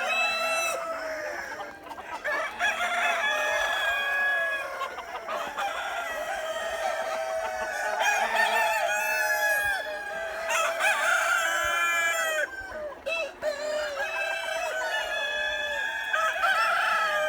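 A flock of chickens calling and clucking, many birds overlapping without a break.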